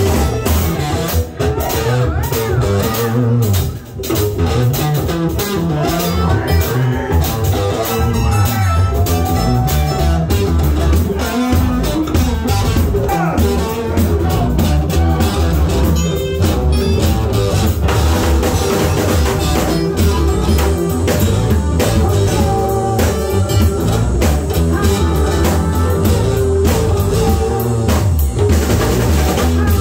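Live jam: electric guitar and electric keyboard playing together over a steady beat, loud and continuous.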